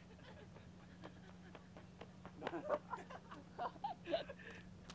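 Faint human laughter and short voice sounds, starting about two seconds in, over a steady low hum.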